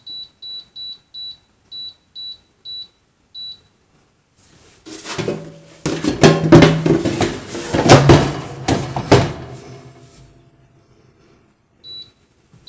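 Air fryer touch panel beeping as its buttons are pressed to set the time and temperature: a quick run of about ten short high beeps. Then several seconds of clattering and knocking as an air fryer basket drawer is pulled out, handled and slid, and one more beep near the end.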